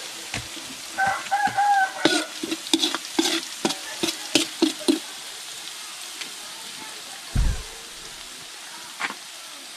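A metal spatula scraping and knocking around the inside of a large wok over a steady sizzle of chili paste frying in oil, with a quick run of scrapes from about two to five seconds in. A single low thump comes near the end.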